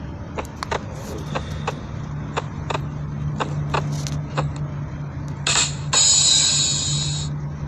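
Edited sound-effect clips: about a dozen sharp mechanical clicks at an uneven pace over a steady low hum, then a short hiss and a longer, louder hiss near the end.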